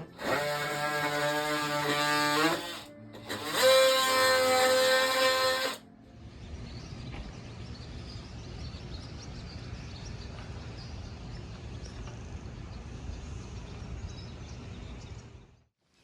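A short musical passage of held pitched notes in two phrases, then steady, even noise with a low rumble that cuts off just before the end.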